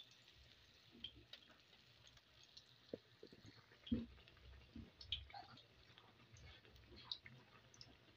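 Faint crackling and scattered small pops of akara bean fritters deep-frying in hot oil in a pan, with a soft knock about four seconds in.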